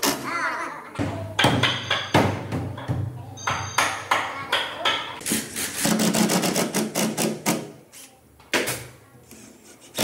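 Woodworking sounds: a run of sharp taps and knocks, as of hand tools striking or working wood, growing quieter for a short stretch near the end.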